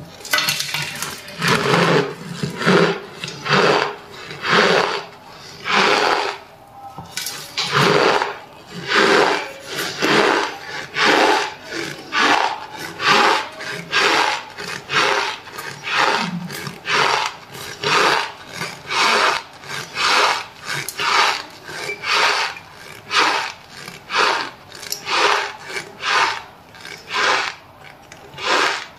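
Metal spoon pressing and scooping into packed dry cornstarch, the starch crunching in a steady series of strokes, a little more than one a second.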